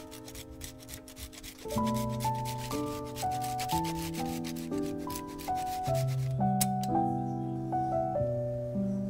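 Grated Parmesan showering onto a pan of cream sauce makes a dense, fine crackling rustle for about the first six seconds. A wooden spoon then begins stirring. Background music with a slow stepped melody plays under it throughout.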